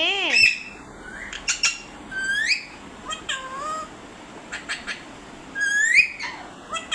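Pet parrot calling: a wavering call, then a series of short squawks and whistle-like calls that sweep upward in pitch, with a few sharp clicks between them.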